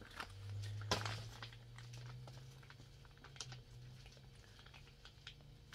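Crinkling and light clicks of MRE plastic food pouches being handled, the sharpest click about a second in. A low steady hum comes in just after the start.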